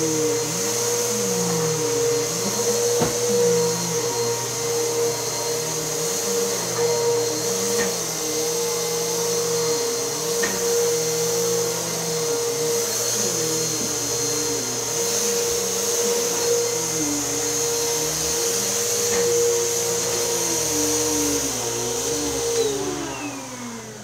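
Vacuum cleaner running with a steady whine. About a second before the end it is switched off and the motor winds down, its pitch falling away.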